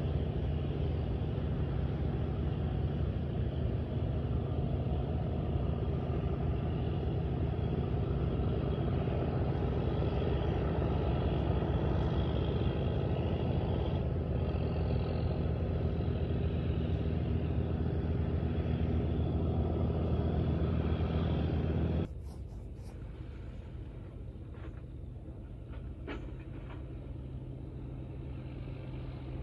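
Engine running steadily: a low droning hum with several deep tones. About three-quarters of the way through it drops suddenly to a much fainter low hum.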